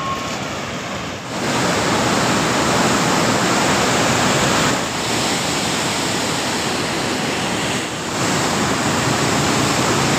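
Sutlej floodwater rushing through and below the gates of a river barrage (headworks), a loud, even roar of churning water from the river running high. Its level jumps up about a second in and shifts twice more.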